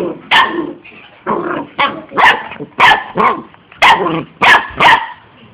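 A dog barking repeatedly, about ten loud, short barks in uneven groups, stopping about five seconds in.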